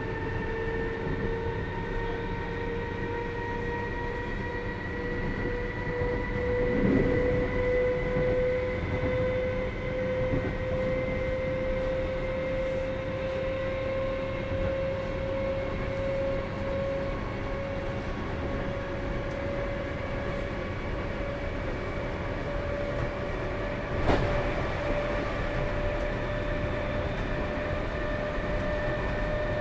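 Inside a Class 319 electric multiple unit at speed: a whine from the DC traction motors and gearing climbs slowly in pitch as the train gathers speed, over a steady rumble of wheels on track. A knock comes about seven seconds in, and a sharp click near the end.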